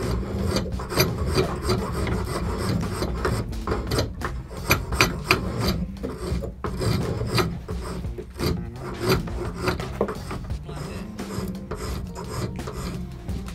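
A hand-forged rebar drawknife shaving a block of wood held in a bench vise: quick, repeated scraping pull strokes that curl off shavings, the blade cutting very nicely.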